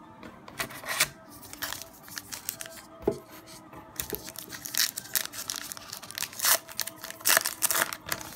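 Wrapper of a baseball card pack being torn open and crinkled in the hands: a run of sharp rips and crackles, loudest in the second half.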